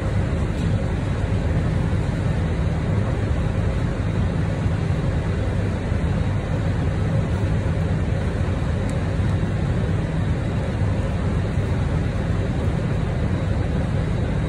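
A steady low mechanical rumble with an even hiss above it, unchanging in level.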